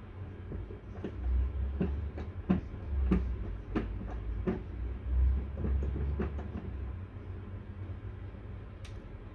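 Small model steam engine being turned over by hand at its brass flywheel, its moving parts giving a regular click about every two-thirds of a second over a low rumble. The clicking stops after about six and a half seconds, and a single sharp tick comes near the end.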